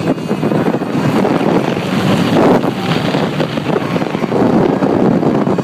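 Wind buffeting the microphone as the California Screamin' roller coaster train races along the track at speed.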